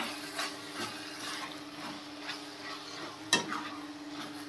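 Metal spatula stirring a thick potato and radish-pod curry in a stainless steel kadai, scraping the pan over a light sizzle, with a sharp scrape against the metal about three seconds in.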